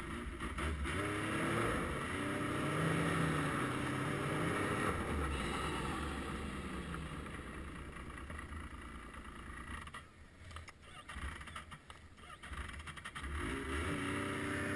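Yamaha RS Vector GT snowmobile's four-stroke engine running under way. Its pitch rises as the sled speeds up in the first few seconds, then falls and eases off through the middle. It is quieter and uneven for a couple of seconds before climbing again near the end.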